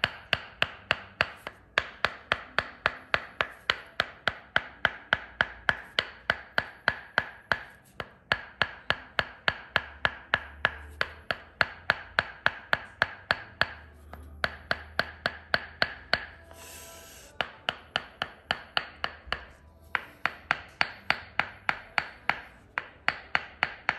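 Tok Sen massage: a wooden mallet rapidly tapping a wooden peg pressed against the thigh, giving a steady train of sharp, pitched wooden knocks about four a second. The tapping stops briefly a few times.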